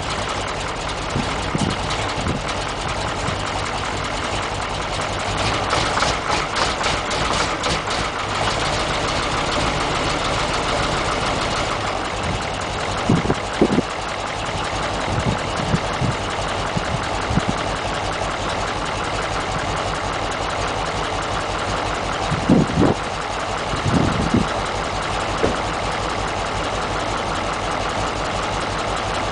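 Caterpillar 3208 V8 diesel idling steadily just after a cold start on ether, having sat since fall. A stretch of rapid clatter comes about six seconds in, and a few short, louder knocks follow later.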